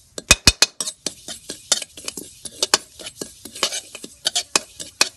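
A spatula stirring and scraping dry grains around a wok: a quick, irregular run of scrapes and clinks of the spatula on the pan, with two sharp knocks near the start.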